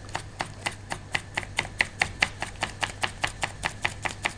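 Kitchen knife rapidly chopping garlic on a wooden cutting board, about five even strokes a second, mincing it finely.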